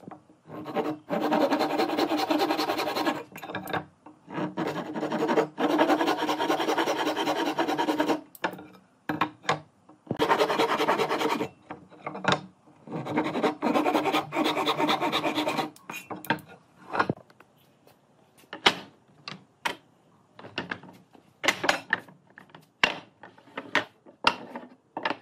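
A tool working wood in several long strokes of two to three seconds each, with short gaps between them. After that come scattered light taps and clicks.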